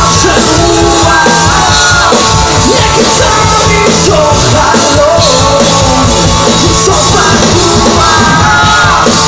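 Live rock band playing loudly and steadily: acoustic and electric guitars over a drum kit.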